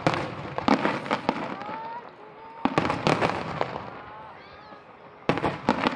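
Fireworks starmine barrage: volleys of sharp bangs and crackling from ground-fired mines and bursting shells, coming in four clusters a second or two apart with fading crackle between.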